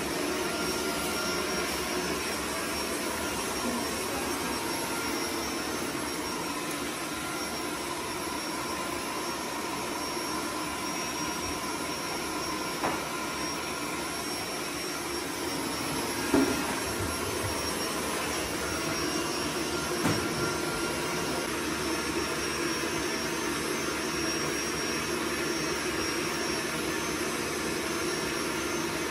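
A kitchen appliance running with a steady whir, with a few soft knocks around the middle.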